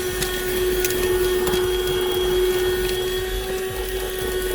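Buture corded handheld car vacuum running at a steady pitch, with a few faint clicks.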